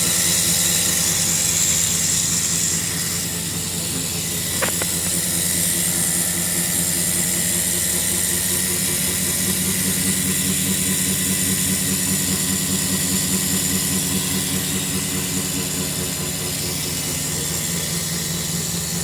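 Daikin VRV air-conditioning compressor running with a steady, even hum and hiss: the abnormal compressor noise being shown as a fault. A single sharp click about four and a half seconds in.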